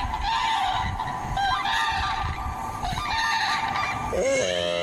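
A bird calling over and over in short, high-pitched calls in quick groups. A lower, longer call with a bending pitch starts near the end.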